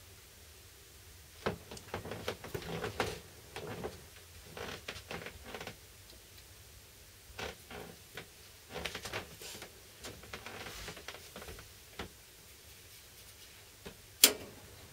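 Handling noises of metal hand tools working at a circuit board: irregular clusters of light clicks, taps and scrapes, with one sharper click near the end.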